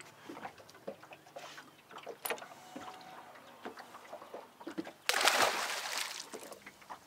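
A few light knocks and clicks as a blue catfish is handled in the boat. About five seconds in comes a loud splash lasting under two seconds as the fish is released over the side into the lake.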